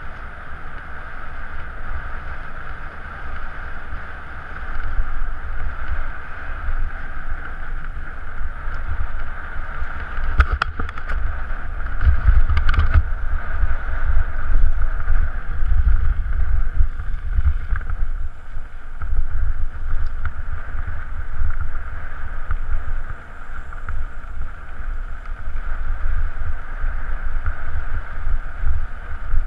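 Wind buffeting a mountain biker's camera microphone on a fast descent, over the steady rush of knobbly tyres rolling on a gravel track. A couple of sharp knocks from the bike come near the middle.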